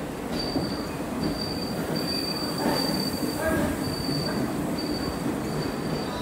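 Indian Railways sleeper coaches of a departing express rolling past, their wheels rumbling on the rails. A thin, high, steady squeal comes and goes over the rumble.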